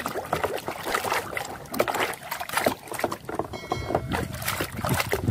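Hand scrubbing a plastic toy pistol in a plastic basin of muddy water: rapid, irregular splashing and sloshing.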